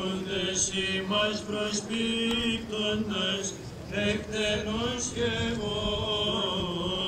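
Greek Orthodox Byzantine chant sung by a male voice, melismatic, with long held, wavering notes.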